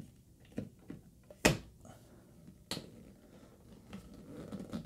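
Plastic housing of an access point clicking and knocking against its ceiling mounting bracket as it is pushed and twisted, a few sharp separate clicks with the loudest about a second and a half in.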